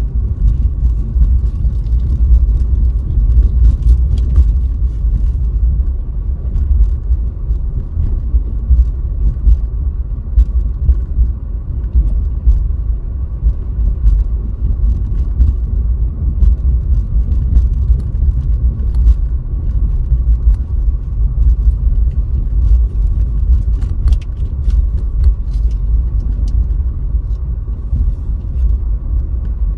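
Car driving on a snowy road heard from a dashcam inside the car: a steady low rumble of tyres and engine, with a faint steady high tone and scattered light ticks.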